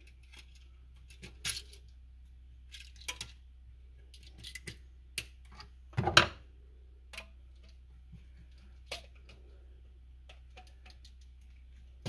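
Irregular light clicks, taps and metal clinks from a GFCI outlet and its copper wires being handled while a ground wire is fastened to it. The loudest knock comes about halfway through.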